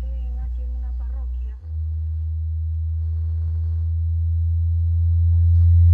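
Low electronic sine-tone drone. About one and a half seconds in, the low hum changes to a single deeper-sitting tone that swells steadily louder. A faint voice sounds underneath at the start.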